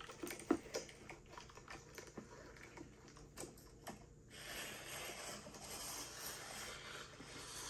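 Two smartphones handled on a wooden table: faint scattered taps and clicks, then a soft steady hiss from about four seconds in as one phone is picked up and turned over.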